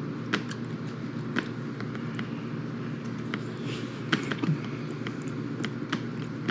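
A person chewing a soft steamed bun, with short sharp wet mouth smacks and clicks about once a second and a louder cluster about four seconds in, over a steady low hum.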